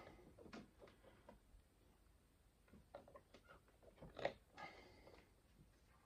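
Faint clicks and handling noise of test leads being plugged into a multimeter and connected up, with a sharper click about four seconds in followed by a brief rustle.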